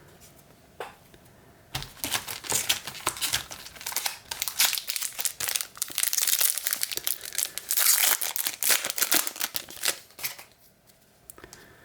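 Wrapper of a baseball card pack crinkling and tearing as it is ripped open: a dense run of crackles starting about two seconds in and dying away near the end.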